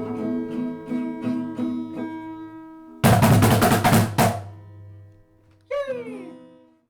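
Band music at the close of a song: strummed guitar chords ring and fade, then a short burst of drum hits comes about three seconds in. Near the end a single note slides down in pitch and dies away.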